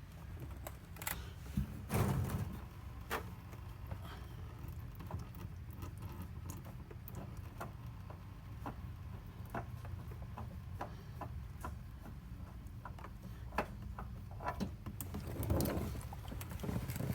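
Scattered clicks and knocks of hands and tools working the oil filter loose from under the vehicle, a little busier about two seconds in and again near the end, over a steady low rumble.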